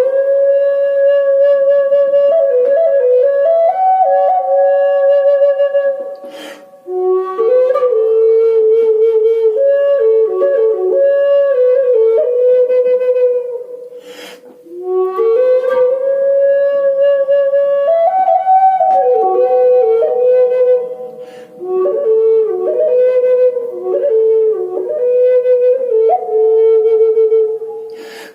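Native American flute playing a slow solo melody of held notes with a slight vibrato, in phrases separated by short pauses about every seven seconds.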